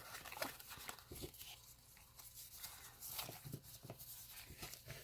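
Faint, scattered small clicks and soft rustles of trading cards being handled and sorted by hand.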